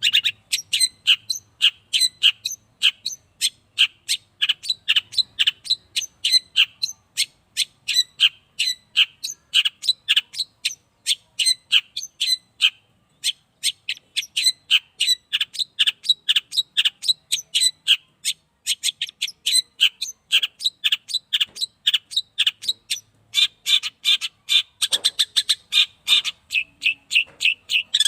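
Young long-tailed shrike singing a continuous, rapid string of short sharp chirping notes, several a second.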